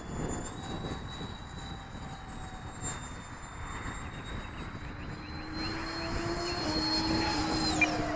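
Freewing P-15 RC jet's electric ducted fan giving a steady high whine as the model flies, with the pitch dropping sharply near the end as it passes by. Wind buffets the microphone underneath.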